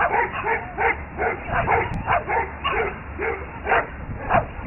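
Small dog yapping in a fast string of short, high barks, about three a second.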